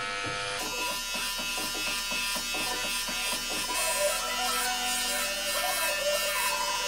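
Corded electric hair clippers buzzing steadily while cutting hair on the side of the head.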